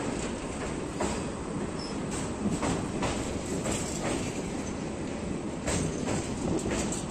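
Passenger train running across a steel truss bridge: a steady rumble of wheels on rails, broken by irregular sharp clacks.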